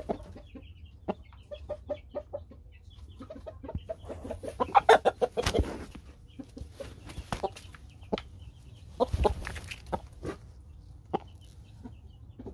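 Chickens clucking in short repeated notes, with two louder bursts of noise, one about five seconds in and another about nine seconds in.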